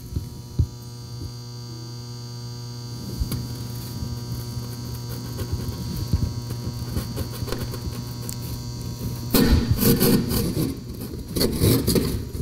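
Hand drywall jab saw cutting through a drywall panel: irregular rasping strokes, with two louder, faster bursts of sawing near the end as the cut-out is freed. A steady electrical hum runs underneath.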